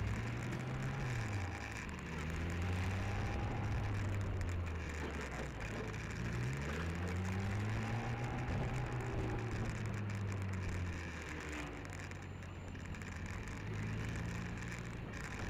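Motorcycle engine running while riding at low speed, its pitch falling and rising several times with the throttle, over steady road and wind noise.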